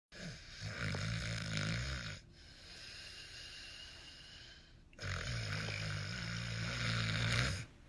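A person snoring loudly: two long, low, buzzing snores of about two seconds each, with a quieter breath between them.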